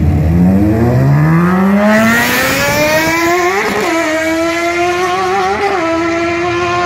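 Go-kart's 1000cc motorcycle engine at full throttle on a drag-strip launch. The pitch climbs steeply over the first two seconds, then keeps rising more slowly, with two brief breaks in the note, and holds roughly level as the kart runs off down the strip.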